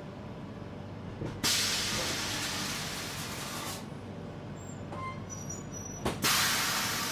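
Two sudden bursts of air hissing from a passenger train's air brakes, one about a second and a half in and another near the end, each fading away over about two seconds. Under them is the steady rumble of the coach running on the track.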